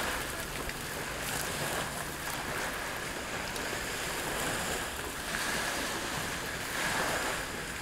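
Zucchini and onion sizzling on a hot copper grill mat in a small propane grill, a steady hiss.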